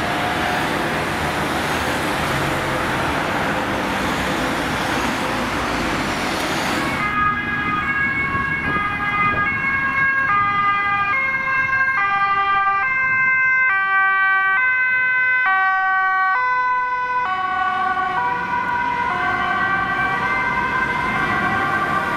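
Loud road traffic noise, then about seven seconds in a Dutch police car's two-tone siren starts, alternating steadily between a high and a low pitch.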